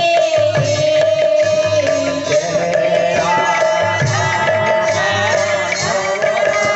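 Kirtan devotional music: a hand-played two-headed barrel drum beats out a rhythm under a sustained, held melody line.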